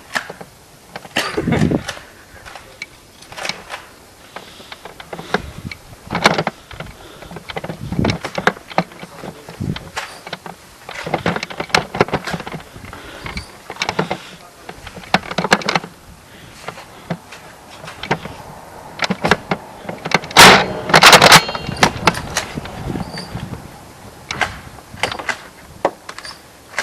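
Handling and movement noise from a player in a Nerf foam-dart game: scattered clicks, knocks and rustles, with a louder cluster of sharp knocks about twenty seconds in.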